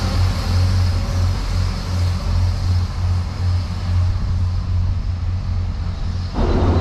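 Irish Rail 29000 Class diesel multiple unit pulling away along the platform: a steady low diesel hum with wheel and running noise that fades as the train draws off. About six seconds in the sound cuts abruptly to louder noise.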